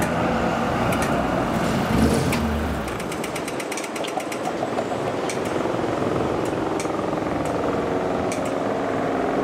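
Suburban electric train running past on the tracks: a steady rumble with rapid clicking and clattering of wheels over rail joints. The deep rumble drops away about three seconds in while the clicking carries on.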